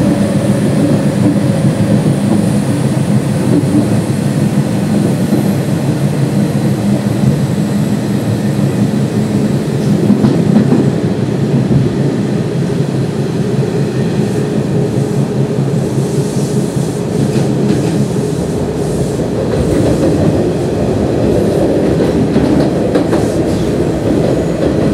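Interior running sound of a Nishitetsu 5000 series resistance-control electric train at speed: a steady rumble of wheels on rails under the traction motors' hum, with occasional rail-joint clacks.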